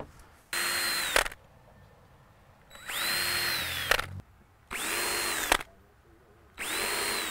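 Cordless drill working into a wooden shutter in four short bursts. Each burst speeds up to a steady whine, holds briefly, then winds down.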